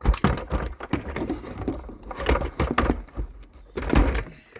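Irregular knocking, thumping and rustling from objects being handled, with loud thumps right at the start and about four seconds in.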